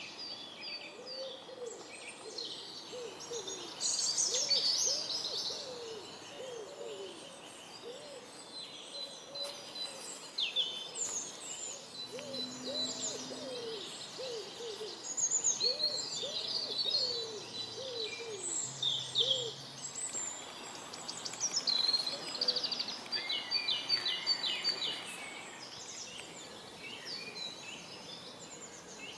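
Spring woodland birdsong: many small songbirds chirping and trilling throughout. Under them a woodpigeon coos in repeated low phrases, which stop about two-thirds of the way through.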